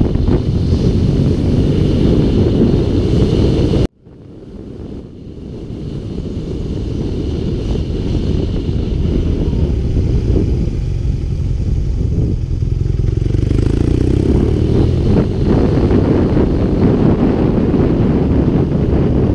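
A motorcycle riding along, its engine and wind rushing over the camera making a steady low rumble. The sound cuts out abruptly about four seconds in, then fades back up over the next few seconds.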